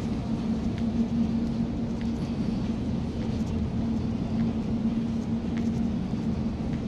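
Steady low rumble with a constant hum of indoor building machinery, such as air conditioning, and a few faint ticks.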